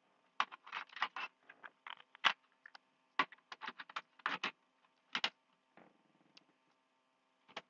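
A dozen or so scattered clicks and taps at an uneven pace, some in quick little clusters, over a faint steady electrical hum.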